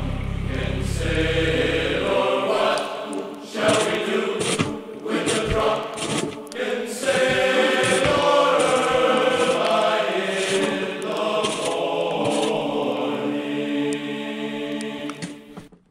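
Choral music, several voices singing long held notes, with a low rumble underneath that stops about two seconds in. The music fades out near the end.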